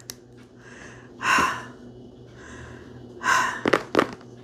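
A woman breathing heavily, with two loud, breathy gasps about a second and three seconds in, softer breaths between them, and a few small clicks near the end. She is short of breath, which she puts down to RSV.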